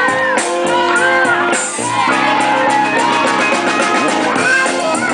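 Live band music: a drum kit with steady cymbal ticks, bass and guitar, and a lead melody line above that slides up and down in pitch.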